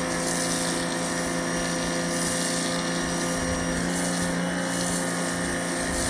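Pressure washer running steadily after its pump kicks in: a steady motor-and-pump hum under the hiss of the water spray.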